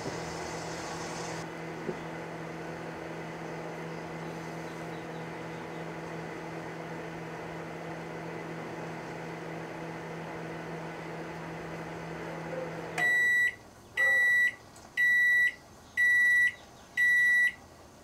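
Danby microwave oven running with a steady hum, which stops about thirteen seconds in. Five loud beeps follow, about one a second, signalling the end of the cooking cycle.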